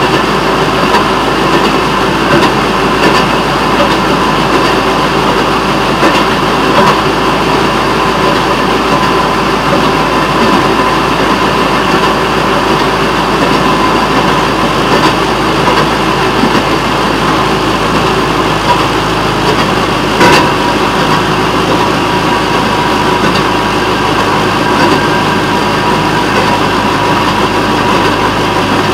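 Railroad motorcar (speeder) running along the track: a steady, loud mix of its engine and steel wheels on the rails, with one sharp clack about twenty seconds in.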